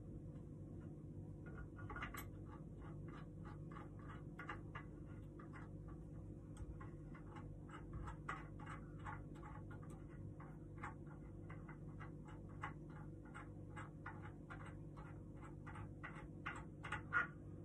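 A hand tool tightening a screw in a wooden tabletop during flat-pack assembly: steady clicking, about three clicks a second, with a few louder clicks near the end, over a low steady hum.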